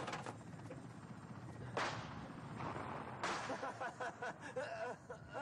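Two pistol shots, about a second and a half apart, over steady background noise.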